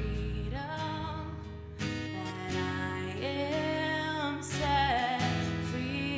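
Live worship song: a woman sings lead in long held, gliding notes over strummed acoustic guitar and a low electric bass line.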